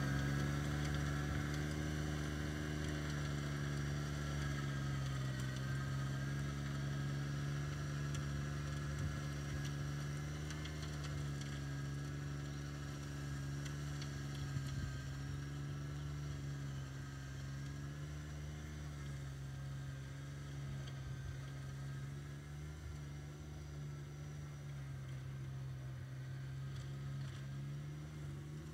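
Subcompact tractor engine running steadily under load while it drives a rear-mounted PTO rotary tiller through sod, gradually growing fainter as the tractor moves away.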